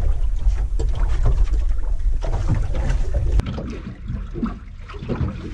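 Wind rumbling on the microphone aboard a small drifting boat, with a noisy wash of water and air around it; the rumble drops suddenly about three and a half seconds in, leaving a quieter, lighter wash.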